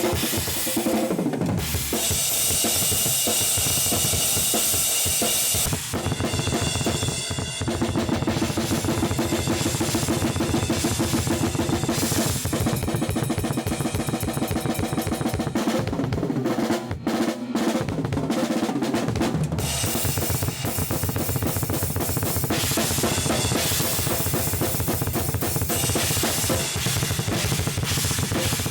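Drum kit played continuously, with bass drum, snare and crashing cymbals. The playing drops out briefly about seventeen seconds in, then picks up again.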